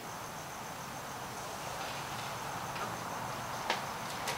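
Crickets chirping, a steady high-pitched trill, with a single light click shortly before the end.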